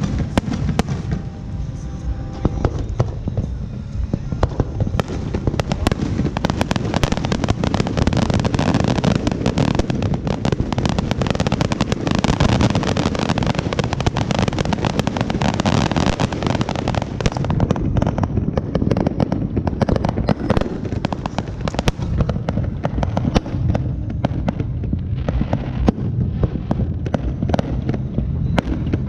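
Fireworks going off in a dense, continuous barrage of crackles and bangs over a deep rumble, thickest in the middle stretch and thinning a little toward the end.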